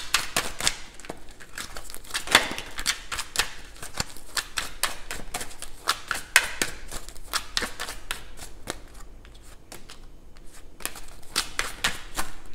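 A deck of oracle cards being shuffled by hand: a quick, irregular run of card flicks and snaps, thinning out for a couple of seconds about two-thirds through.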